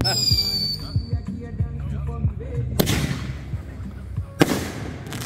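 A firework whistling as it climbs, a shrill whistle that slides slightly downward for about a second, followed by two sharp bangs of bursting shells, the second, near the end, the loudest.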